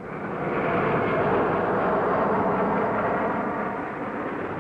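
Bristol Belvedere tandem-rotor helicopter lifting off, its twin Napier Gazelle turbines and two rotors running in a steady, dense noise. It swells over the first second and eases a little near the end.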